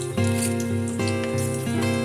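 Background instrumental music, with held pitched notes changing about every half second.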